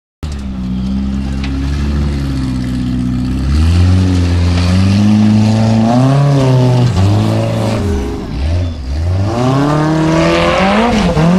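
Formula Offroad buggy's engine revving hard as it climbs a steep dirt slope. It gets louder about four seconds in, and from there the revs rise and fall again and again.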